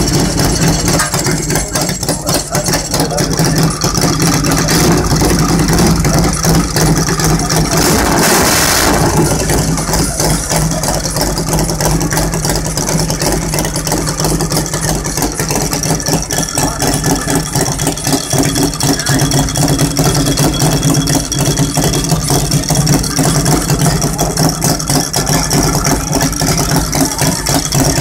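Custom chopper's V-twin engine running steadily through short upswept twin exhaust pipes. A brief loud rushing burst of noise comes about eight seconds in.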